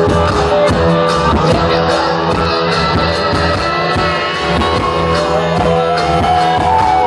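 Live funk music from a one-man band: electric guitar over a steady drum and bass groove.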